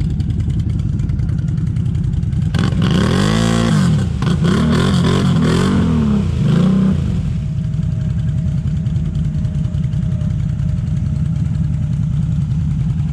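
ATV engine running at low revs, then revved up and down several times between about two and seven seconds in, before settling back to a steady low run.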